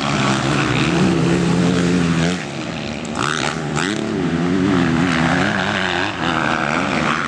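Motocross bike engines racing, the pitch rising and falling as the riders work the throttle and shift. The sound drops briefly a few seconds in, then builds again.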